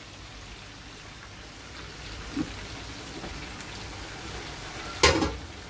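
Hot oil sizzling steadily as meat fries in a pan, with one loud, sharp knock about five seconds in.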